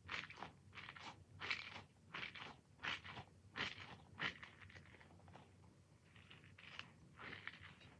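Squishy toy ball being squeezed over and over, a short crackly squish with each squeeze, about two a second, softer for a moment past the middle.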